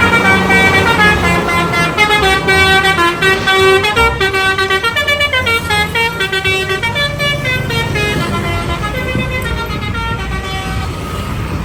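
Basuri telolet bus horn, a multi-note musical air horn, playing a quick stepping melody over the low rumble of the bus engine, trailing off near the end.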